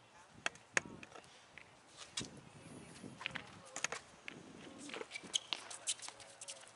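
Sneaker footsteps and scuffs on a concrete court, with scattered sharp knocks through the play, the loudest just under a second in.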